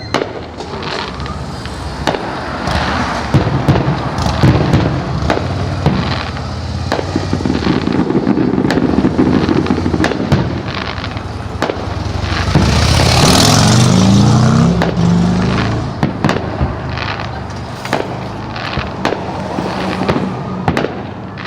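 Fireworks display: a rapid barrage of booms and crackling bursts with many sharp reports. It builds to its loudest stretch a little past the middle.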